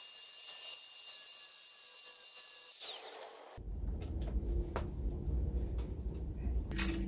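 Angle grinder running with a steady high whine while a screw spun in a cordless drill is ground down against it, necking the screw so a small socket will fit over it; the whine winds down just before three seconds in. After that, a few sharp metal clicks as sockets are handled and fitted over the screws.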